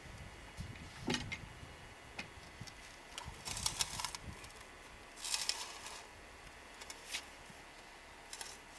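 A heavy timber log being rolled up onto the wall: scattered knocks and clicks, two short scraping rustles in the middle, and a low rumble in the first few seconds.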